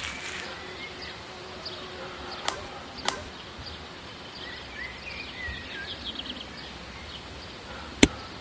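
Outdoor background noise with faint high chirps in the middle and a few sharp clicks, the loudest one near the end.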